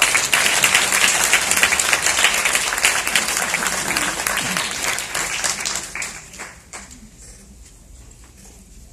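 Audience applauding, strong for about six seconds and then dying away.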